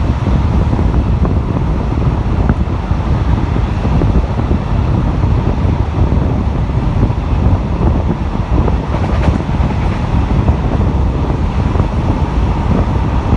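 RHN diesel railcar running along the track, heard from its open side window: a steady rumble of wheels on rail with wind buffeting the microphone.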